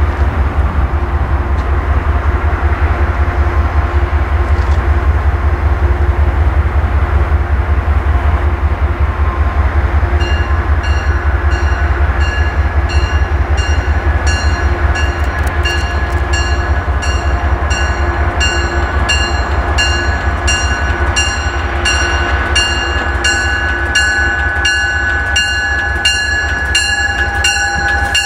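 A slow-moving Metro-North push-pull train with a low diesel rumble underneath. From about ten seconds in, the cab car's bell rings steadily, a little under two strikes a second. Near the end a higher steady tone joins in as the Shoreliner cab car draws close.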